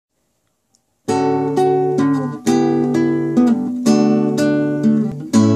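Nylon-string classical guitar playing strummed chords, starting about a second in, each chord left to ring before the next.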